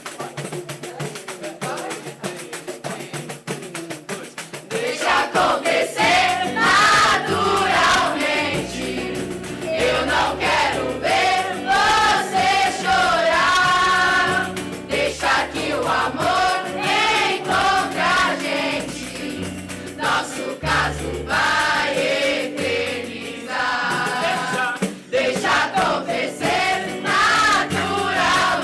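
Group of young students singing together as a choir, with hand percussion keeping the rhythm. For the first few seconds only the percussion plays; about five seconds in the voices and a low accompaniment come in.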